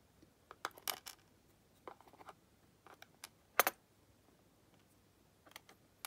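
Scattered small metallic clicks and taps of steel tweezers working tiny lock pins out of a padlock plug and setting them in a plastic pin tray, about ten in all, the loudest about three and a half seconds in.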